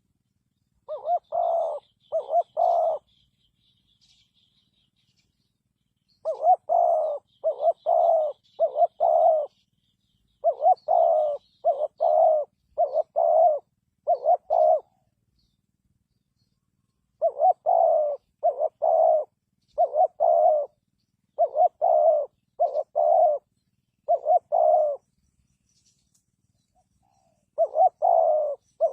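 Spotted dove cooing: runs of short, low coos, several notes to a run, broken by pauses of a few seconds. Faint high chirps from a smaller bird sound behind it.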